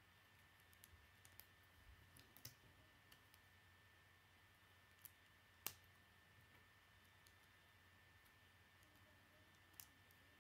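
Lego plastic bricks being handled and pressed together: a few faint, scattered clicks, the sharpest about halfway through, over a very quiet background with a faint steady hum.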